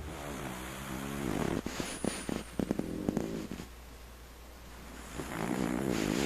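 Pekingese dog snoring in its sleep: a drawn-out pitched snore at the start and another from about five seconds in, with a few short clicking snorts in between.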